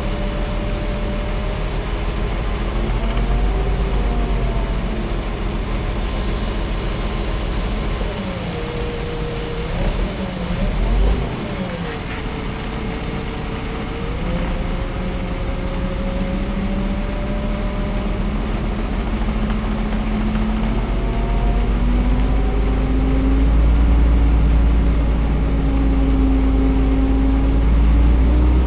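Power steering pump of a 1978 Ikarus 250.12 bus whining over the bus's running diesel engine. The whine wavers and dips in pitch about a third of the way in, then rises together with the engine as the revs are raised toward the end.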